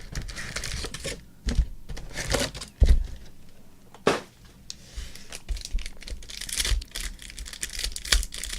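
Trading card pack wrappers crinkling and tearing as packs are opened and handled, with scattered sharp clicks.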